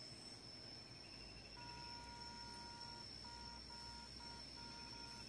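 Faint electronic beeping: a two-note tone comes in about a second and a half in, holds for a while, then breaks into a run of short beeps, over a constant high whine.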